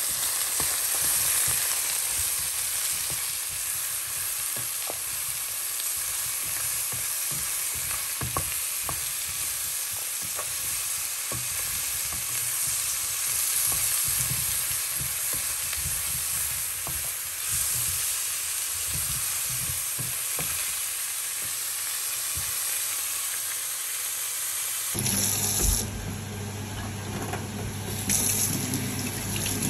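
Brussels sprouts, mushrooms, carrots and a kipper sizzling in olive oil in a frying pan, with a wooden spatula scraping and knocking as they are stirred. About 25 seconds in, this gives way to a tap running into a stainless steel sink.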